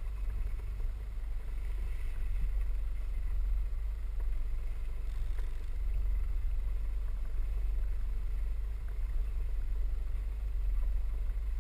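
Land Rover four-by-four driving slowly over a muddy field track, heard from inside the cabin: a steady low engine and drivetrain rumble.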